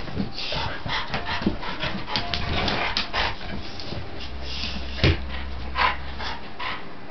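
A wolf spitz (keeshond) and a young Dogue de Bordeaux play-fighting, with short yips, whimpers and panting over a jumble of quick scuffling sounds. Two sharper, louder sounds come about five and six seconds in.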